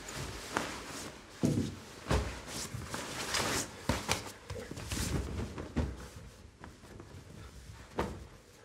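Clothing being handled: a padded jacket rustling as it is folded and set down on a bed, then a T-shirt pulled off over the head. There are irregular fabric rustles and a few soft thumps.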